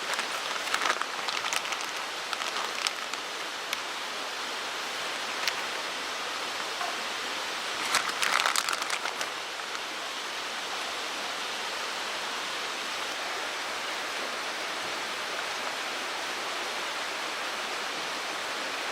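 Mountain stream flowing: a steady rushing of water. Scattered small clicks come in the first few seconds, and a short cluster of louder clicks and rustles comes about eight seconds in.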